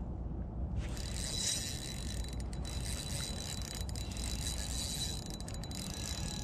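Spinning reel being cranked, a steady mechanical whirr of the reel's gears as line is wound in. It starts about a second in, over a low steady rumble.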